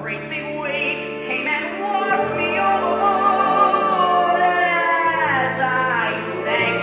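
Musical-theatre singing with instrumental accompaniment: a voice holds a long wavering note that slides down about five seconds in, over steady bass notes.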